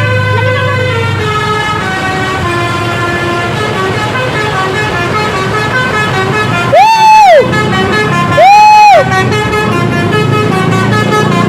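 A tour bus's telolet musical horn (basuri) playing a stepping melody of horn notes, with two loud, long blasts that swell up and fall away in pitch about seven and eight and a half seconds in.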